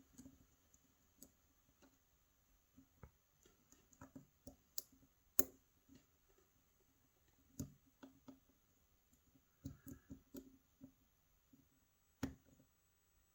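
Lock pick working the pin stack of a Euro profile pin-tumbler cylinder held in a false set: scattered light clicks and ticks of pins being lifted and the core shifting, with a few sharper clicks, the loudest about five seconds in.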